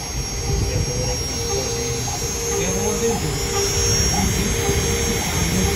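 CNC engraving machine at work: its spindle runs with a steady high whine over a low rumble, and a humming tone breaks off and resumes every second or so as the head steps from dot to dot, drilling small holes in a hot-fix die sheet.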